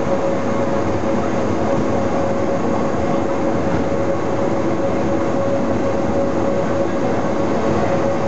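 Pilatus Railway cogwheel railcar running steadily on the rack line: a continuous rumbling ride noise with a steady whining tone over it.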